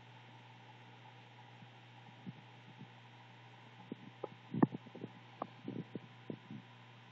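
Faint steady low hum, with a scatter of short soft knocks and rustles from about four seconds in as a hand strokes a cat right beside the camera.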